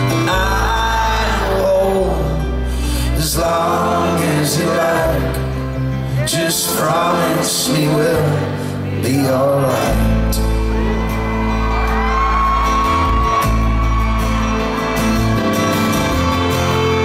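Live folk-rock band playing an instrumental passage on acoustic guitar, banjo and upright double bass, with wordless singing and a few whoops over the music.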